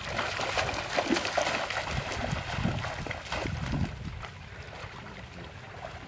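Feet splashing and sloshing through shallow stream water as people wade quickly, in irregular surges that drop to a fainter wash of water about four seconds in.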